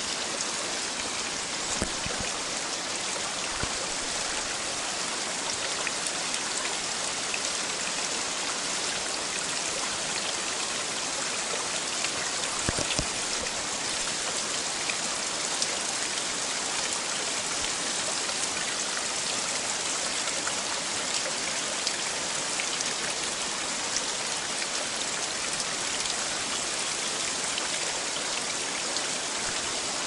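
Thin waterfall spattering and dripping down a rock face, a steady rain-like patter; the fall carries a little water only because of recent rain.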